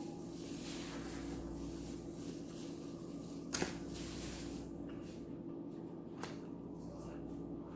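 Rustling and crunching from eating Popeyes fried chicken, with a sharp click about three and a half seconds in. A steady low hum runs underneath.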